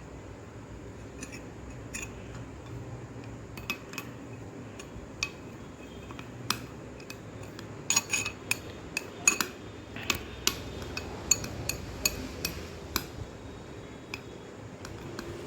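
A spoon clinking against a bowl while a sprout salad is being stirred and served into it: scattered taps at first, then many quick taps from about eight to thirteen seconds in.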